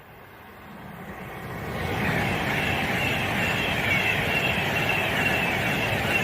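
Electric express train running through the station at speed: the rumble of its wheels on the rails swells over the first two seconds, then holds loud and steady with a high, wavering whine on top.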